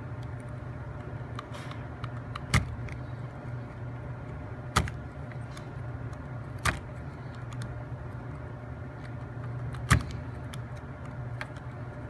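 Wooden toothpick pins being cut off flush with a blade, each cut ending in a sharp snap: four loud snaps about two seconds apart with fainter ticks between, over a steady low hum.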